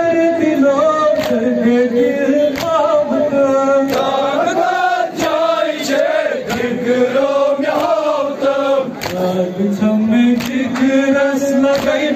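A group of men chanting a Kashmiri noha, a mourning lament, in unison. Sharp rhythmic slaps of chest-beating (matam) keep an even beat, about three every two seconds.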